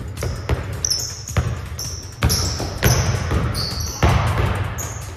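A basketball being dribbled hard on an indoor gym court, the bounces coming at an uneven pace during a one-on-one drive, with short high squeaks from sneakers on the floor.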